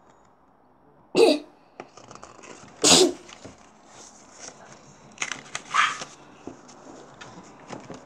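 Paper handling on a picture book: a page turned and a paper letter slid out of an envelope, rustling, with two short sharp sounds about one and three seconds in and smaller crinkles near the middle.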